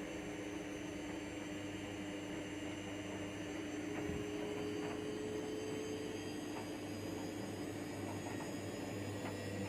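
Steady machine hum with a few fixed tones, a higher one joining about four seconds in.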